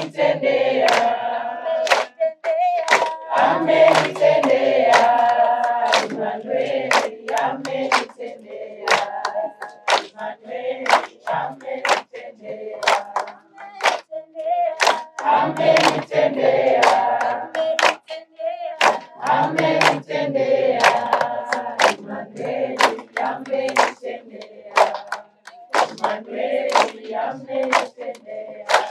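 A group singing a worship song together, with hand clapping on the beat at about two claps a second. The singing comes in phrases that swell and drop back.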